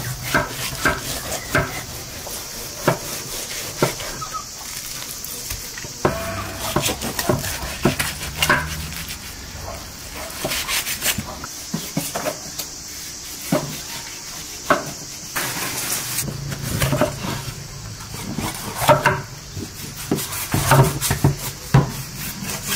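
Kitchen knife cutting raw lamb and chopping bell peppers on wooden cutting boards: irregular knocks of the blade against the board, over a steady high-pitched background hiss.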